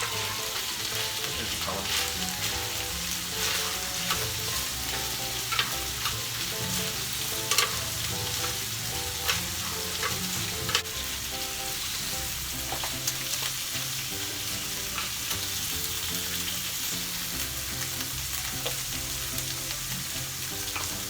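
Pork belly sizzling steadily on a tabletop samgyupsal grill, with a few sharp clicks scattered through.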